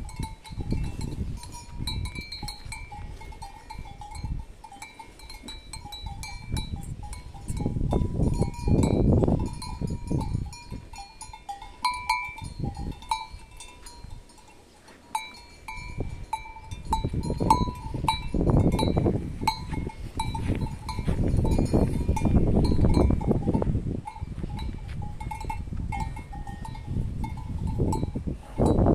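Cattle feeding from basins, with repeated clinks and short ringing tones, and a low rumble that swells and fades several times.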